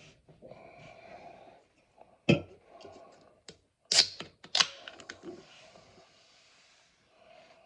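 A person breathing noisily close to the microphone, broken by a few sharp clicks or knocks; the loudest comes about two seconds in, and two more follow close together about four seconds in.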